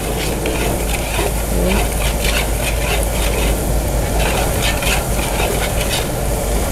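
Minced garlic frying in hot oil in a pan: a steady sizzle with many small irregular crackles.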